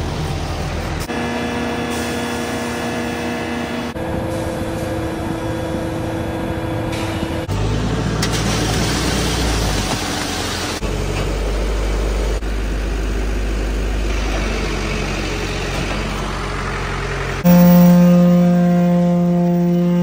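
Ready-mix concrete mixer truck's engine running while concrete discharges from the drum down the chute, its tone changing abruptly several times. About seventeen seconds in, the engine gets louder and holds a steady pitch.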